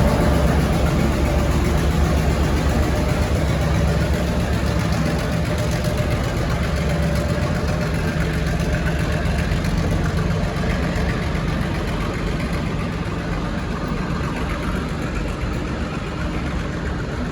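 Diesel-electric shunting locomotive's engine running steadily, a low hum that slowly gets quieter.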